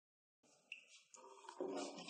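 Near silence at first. From about one and a half seconds in come faint kitchen sounds of a thin yogurt and gram-flour batter being worked in a metal cooking pot.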